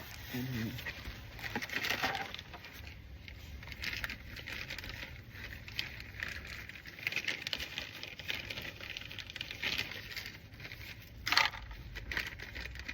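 Small metallic clinks, rattles and rustling of things being handled, with a sharper, louder knock about eleven seconds in.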